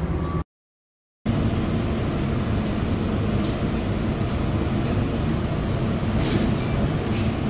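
Steady low rumble of indoor air conditioning, broken by a short gap of dead silence about half a second in, at an edit. A few faint light ticks come later.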